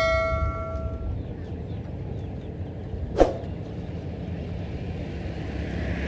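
The bell 'ding' of a subscribe-button animation rings out and fades within the first second, over a steady low rumble. About three seconds in there is a single short, sharp sound that glides downward in pitch.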